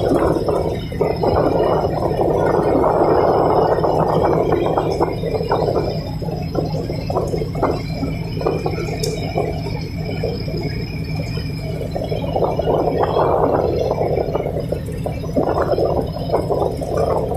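A tugboat's engines running with a steady low rumble, under an irregular, surging rushing noise that comes and goes.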